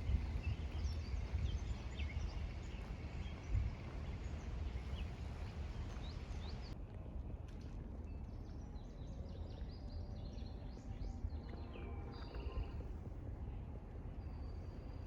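Small birds chirping and calling over a steady low outdoor rumble, the calls coming thicker in the second half.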